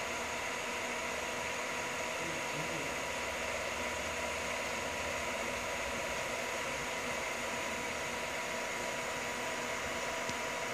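Small GoldStar induction motor running on a Yaskawa CIMR-G3A23P7 inverter during a bench test: a steady whir with a thin, steady electrical whine over it.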